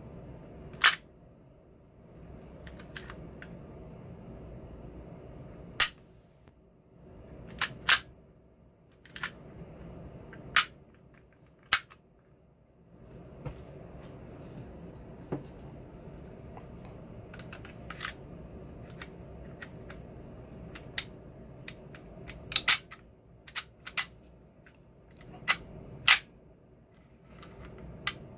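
Airsoft Glock 19 gas blowback pistol firing single shots, each a sharp snap, about twenty at irregular intervals with a few quick pairs.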